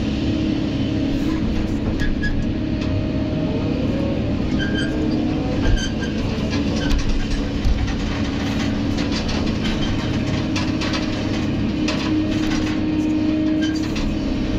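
Kobelco SK200 excavator heard from inside its cab: the diesel engine and hydraulics run with a steady hum while it dumps a bucket of soil into a dump truck, swings back and digs. A few sharp clanks from the bucket and rock come about six and eight seconds in.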